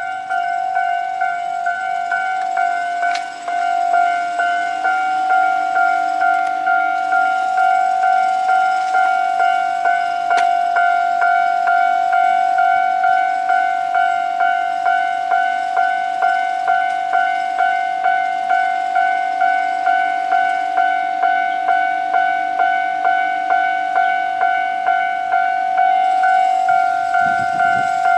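Japanese railway level-crossing warning bell ringing its repeated electronic clang, a little under two strikes a second. It is the signal that a train is approaching and the crossing barriers are down.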